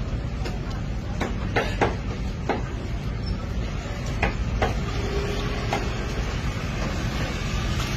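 Sharp knocks and clicks of a knife and raw chicken carcass being worked on a wooden chopping block, a cluster of them in the first few seconds and a few more later, over a steady low rumble.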